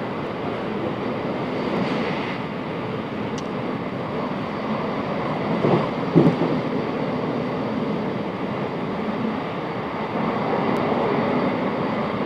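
Class 707 Desiro electric multiple unit running at speed, heard from inside the carriage: a steady rumble of wheels on the rails, with a short, louder clatter about halfway through.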